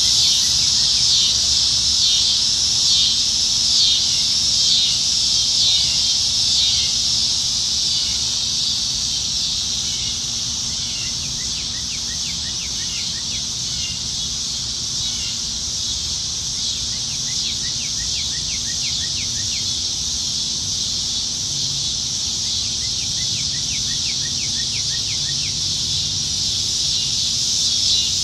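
Dense, steady chorus of cicadas singing high and continuously, pulsing in the first few seconds. A lower, rapid ticking call joins in three short runs of a few seconds each.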